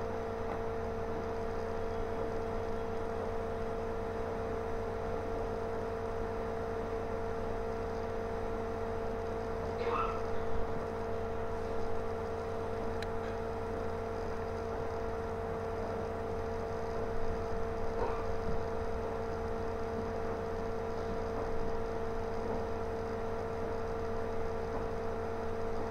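Steady electrical hum with a constant mid-pitched tone, and a few faint short sounds about ten and eighteen seconds in.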